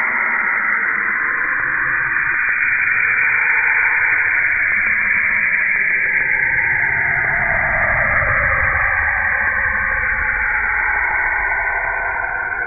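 Saturn's radio emissions turned into sound: a steady, static-like hiss with a band that sweeps slowly down in pitch and then climbs back up near the end. A low rumble swells through the middle.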